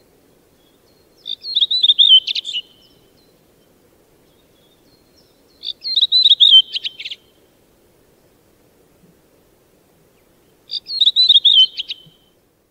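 Redwing singing: three short phrases a few seconds apart, each a wavering high whistle followed by a quick twitter.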